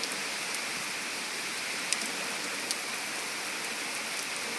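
Heavy rain pouring down in sheets, a steady even hiss with a couple of sharp ticks of drops striking close by about two seconds in.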